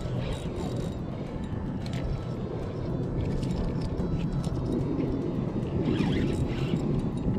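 Motorboat engine running out on the water, growing louder toward the end, under wind and water noise, with a few light clicks from the spinning reel being worked.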